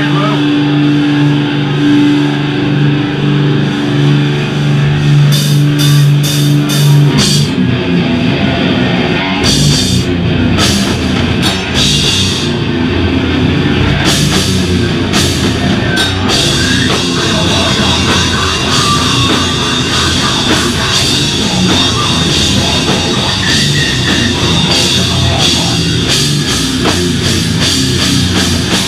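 Live slam/beatdown hardcore band playing loud: distorted guitars hold a low chord under a few cymbal crashes, then about seven seconds in the full band drops into a heavy riff with drum kit. The cymbals get busier from about halfway.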